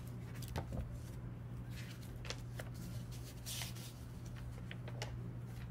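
Paper pages of a picture book being opened and turned by hand: a handful of short rustles and crisp page flicks, one longer rustle about three and a half seconds in, over a steady low hum.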